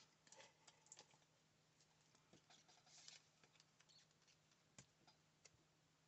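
Near silence: faint, scattered light ticks and rustles of paper card pieces being handled on a craft table, over a faint steady hum.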